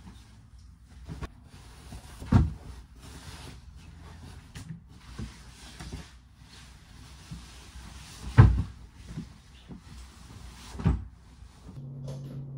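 Bedding being handled as a bed is made: fabric rustling, with three dull thumps as pillows and the duvet are dropped onto the mattress.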